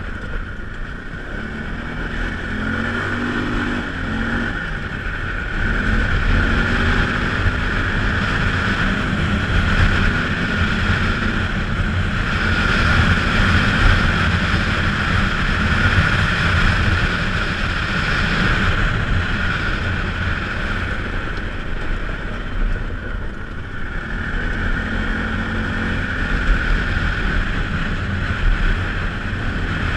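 Polaris Sportsman ACE 570 engine running under way, its revs rising and falling several times, with wind buffeting the microphone.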